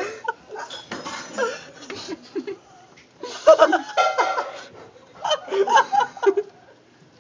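People laughing in three bouts, with quieter gaps between.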